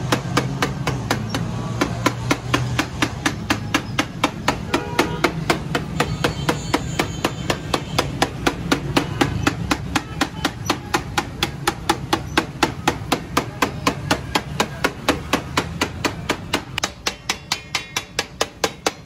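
Steel spatula striking a cooking pan at a street-food stall in rapid, even strokes, about five a second, over a steady low hum that drops away near the end.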